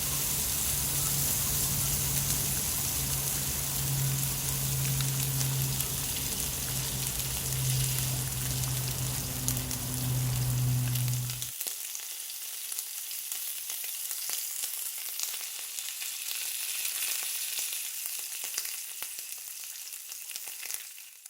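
Dense crackling sizzle like food frying, over a steady low hum that cuts off suddenly about halfway through; the crackle carries on, quieter, after the hum stops.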